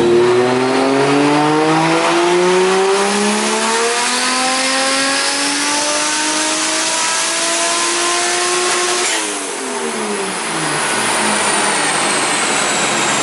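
Big-single-turbo 1JZ inline-six in a Lexus SC300 making a full-throttle dyno pull: the engine note rises steadily for about nine seconds, then the throttle lifts and the revs fall away quickly. After that a steady rush remains, with a thin high whistle slowly falling in pitch.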